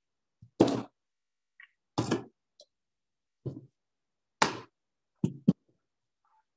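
About six short knocks and thumps of a rolling pin and hand tools being picked up, pressed and set down on the board under a clay slab, the last two in quick succession.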